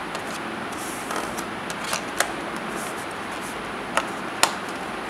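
Scattered light clicks and taps of a hand handling a cardboard box and its moulded packaging insert, over a steady background hiss.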